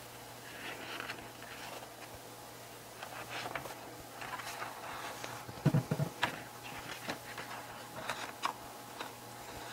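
Pages of an album's photo book being turned by hand: paper rustling with light taps and clicks, and a few dull thumps about six seconds in.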